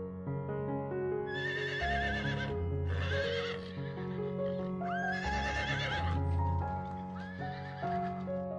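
Horse whinnying four times in quavering calls, the last one shorter and fainter, over background music of steady sustained notes.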